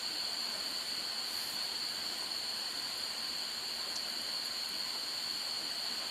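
Steady high-pitched chirring of an insect chorus, a constant even tone over a background hiss.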